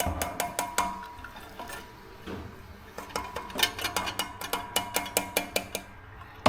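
Metal utensil clinking and tapping against a cooking pot of simmering braised fermented fish as it is stirred: a cluster of clicks in the first second, then a quicker run of taps through the second half, some with a short metallic ring.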